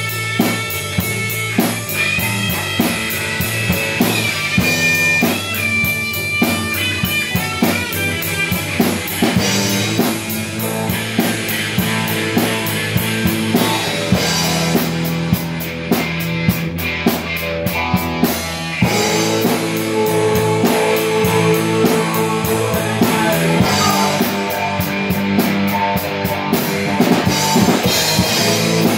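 Rock music: a guitar played along with a drum kit, with steady drum hits under held and picked guitar notes.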